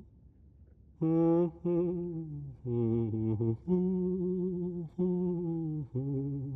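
A low voice humming a slow tune without words: a string of held notes, each wavering slightly and dipping at its end, starting about a second in.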